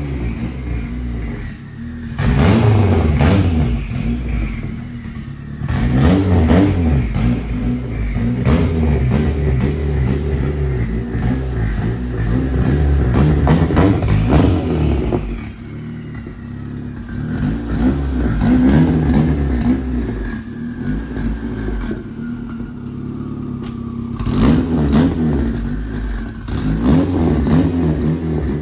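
Turbocharged Honda Civic engine revving and accelerating in repeated surges, with a thin whine sliding up and down over it in the middle.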